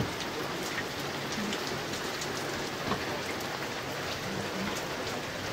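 Steady rain falling, a constant hiss with scattered drops tapping.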